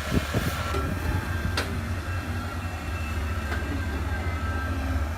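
Komatsu excavator's diesel engine running steadily under load, a low rumble, with one sharp clank about a second and a half in.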